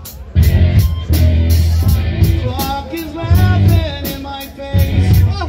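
Live rock band playing through a stage PA: drum kit with a fast, even cymbal beat, a bass guitar playing in phrases, and electric guitars.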